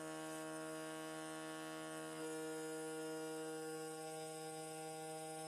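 Small milling-spindle motor of a hobby CNC machine running steadily with a 1 mm drill bit held against hardened razor-blade steel, a steady electric hum whose tone shifts slightly about two seconds in. The bit is spinning in a tiny crater and heating the steel rather than cutting through it.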